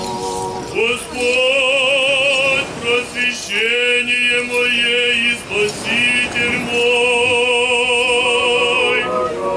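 Orthodox liturgical singing: voices with heavy vibrato holding long, wavering notes, with a few short breaks.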